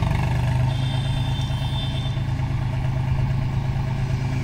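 John Deere tractor's diesel engine idling steadily.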